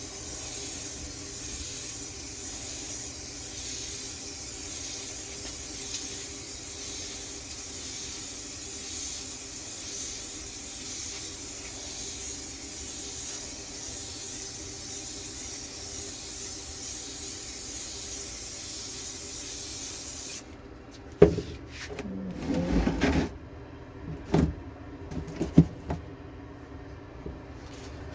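Aerosol can of clear matte spray hissing in one long, steady spray for about twenty seconds, then cutting off, followed by a few sharp knocks and handling noises.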